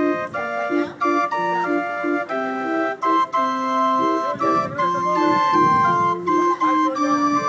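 Hand-cranked street barrel organ by Orgelbau Stüber of Berlin playing a tune: a melody of pipe notes over repeating lower accompaniment notes.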